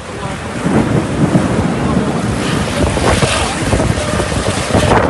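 Strong storm wind gusting and buffeting the microphone, growing louder about a second in.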